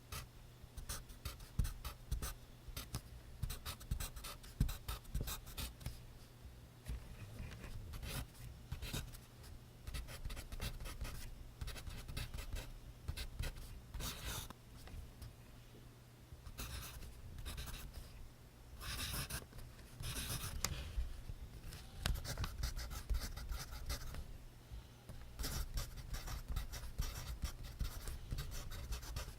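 Pencil writing on notebook paper: quick, scratchy strokes in irregular runs, with a few longer, louder passages of scribbling.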